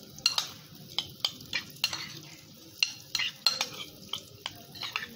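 Metal spoon stirring chopped mango salsa in a ceramic bowl, clinking and scraping against the bowl in irregular strokes.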